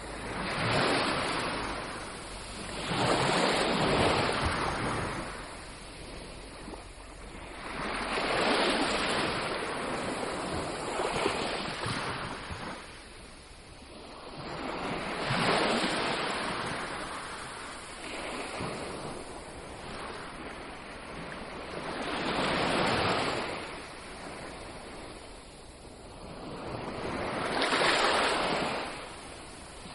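Ocean surf breaking on a beach: each wave comes in as a rushing wash that swells and fades, about every six seconds, six or so in a row.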